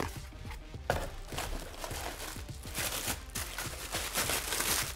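Clear plastic bag crinkling and cardboard rustling as a wrapped speaker is handled and lifted out of its box, busiest in the second half, over background music.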